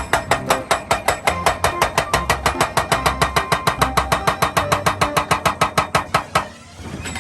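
Excavator-mounted hydraulic hammer (breaker) pounding, a fast even run of blows about seven a second that stops suddenly near the end.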